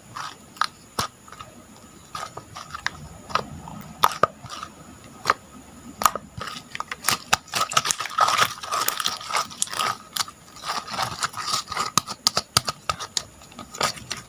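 Slime being squeezed and poked by hand, making irregular wet clicks and pops that come thickest in a dense run through the middle.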